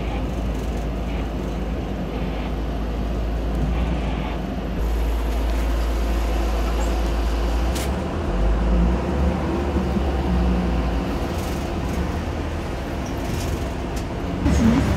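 City bus in motion heard from inside the passenger cabin: a steady low rumble of engine and road noise.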